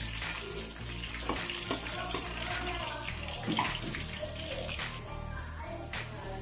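Soya chunks deep-frying in hot oil, a steady sizzle that thins out after about five seconds. A few sharp clicks come from a perforated steel skimmer ladle against the pan as the chunks are stirred and lifted out.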